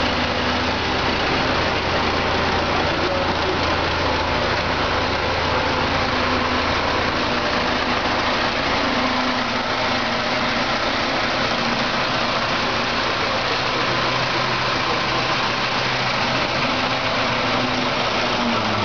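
Large forklift's engine running steadily as it drives with a load on its forks, its low hum easing off about halfway through.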